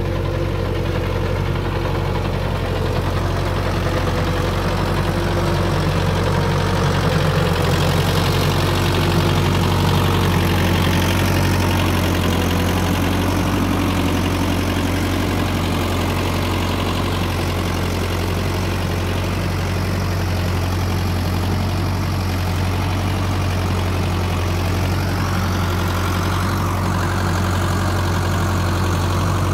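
Same Centurion 75 tractor's diesel engine running steadily close by, a strong low hum that holds even throughout.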